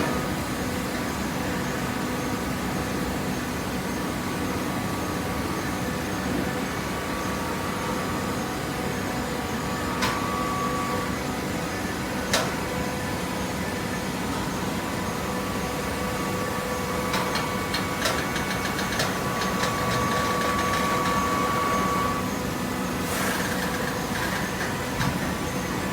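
Hydraulic waste paper baling press running: a steady machine hum with a few sharp clicks, a quick run of clicks past the middle, and a high tone that swells for a few seconds before stopping.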